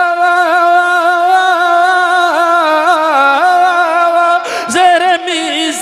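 A man's voice singing an Urdu naat through a microphone, holding one long note that breaks into wavering melodic ornaments about two seconds in. No instruments are heard alongside.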